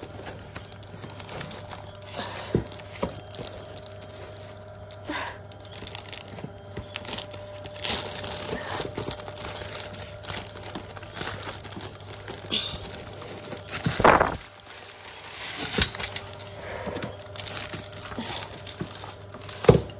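A clear plastic bag crinkling and a cardboard box rustling as a wrapped leather weightlifting belt is worked out of the box and handled, in irregular bursts with one louder rustle about fourteen seconds in.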